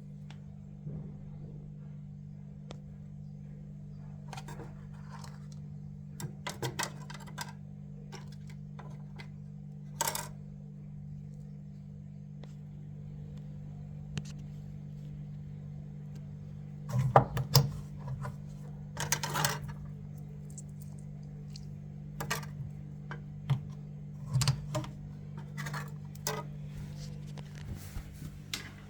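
Scattered clinks, knocks and scrapes of tools and metal parts being handled while a washing machine's blocked drain pump is opened up, over a steady low hum. The busiest, loudest handling comes a little past the middle.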